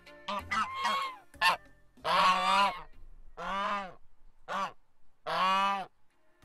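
Domestic geese honking: a few short calls in the first second and a half, then four louder, drawn-out honks about a second apart.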